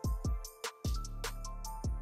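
Instrumental background music with drum hits and sustained notes.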